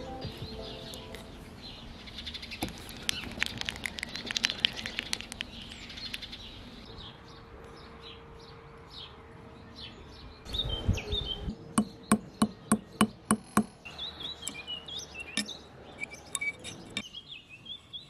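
Light metallic clicks and taps as the steel jaws and body of a three-jaw lathe chuck are handled, including a quick run of about eight sharp clicks partway through. Birds chirp in the background, most clearly near the end.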